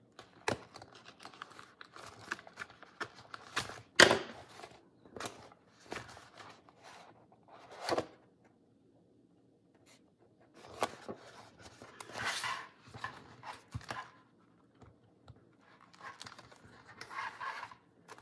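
Paper and card rustling, crinkling and clicking as a hand-sewn journal's cover, pages and thread are handled, with a sharp knock about four seconds in and another near eight seconds, then a brief lull.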